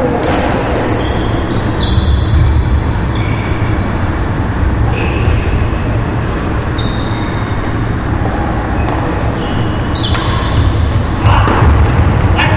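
Badminton shoes squeaking briefly and repeatedly on a wooden sports-hall floor, with footfalls and a few sharp racket strikes on the shuttlecock near the end, over a steady low rumble in the echoing hall.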